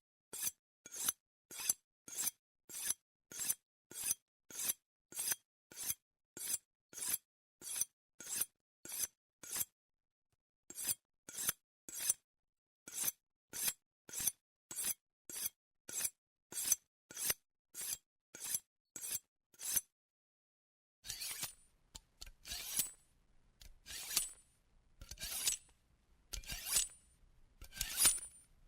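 Knife blade being sharpened, drawn stroke after stroke across a sharpener: short, high-pitched strokes at an even pace of about two a second, with a brief break about ten seconds in. Near the end the strokes turn slower, longer and uneven.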